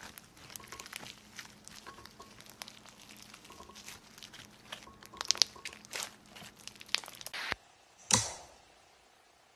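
Slime being squished and worked by hand, giving a dense run of small crackling, crinkling pops. After a brief drop-out, one louder sharp pop near the end trails off.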